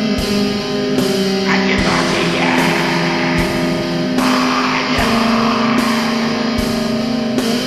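Depressive black metal: guitars holding long sustained chords over a slow drum beat, with a bass drum hit about every second and a half.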